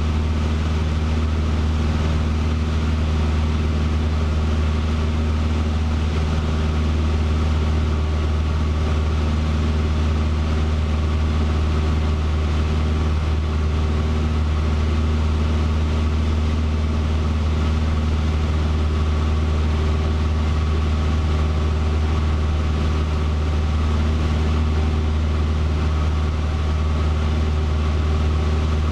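Cessna 150's four-cylinder Continental O-200 engine and propeller in flight, a loud steady drone heard from inside the cabin.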